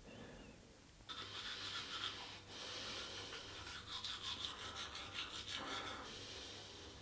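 Manual toothbrush scrubbing teeth in quick back-and-forth strokes. It starts abruptly about a second in, breaks off briefly near the middle, and fades down a second or so before the end.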